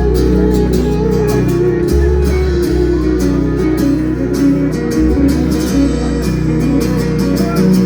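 Live rock band playing an instrumental passage: electric guitars over sustained bass notes and drums, with steady cymbal strokes.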